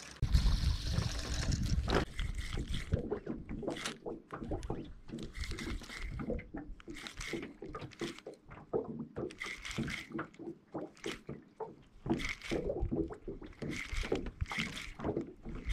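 Water lapping against a small fishing boat's hull, with irregular knocks and clicks, and a low rumble in the first couple of seconds.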